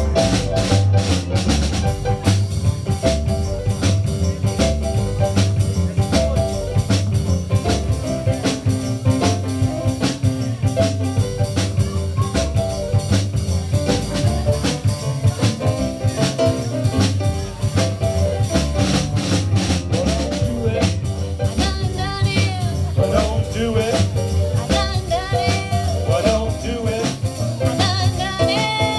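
Live swing band playing with a drum kit keeping a steady beat. A singing voice comes in near the end.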